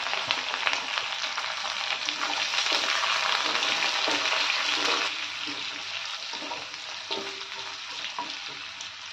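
Freshly added pumpkin pieces sizzling in hot oil in a metal kadhai, stirred with a wooden spatula that gives a few light knocks. The sizzle is loudest at first and dies down after about five seconds as the pumpkin cools the oil.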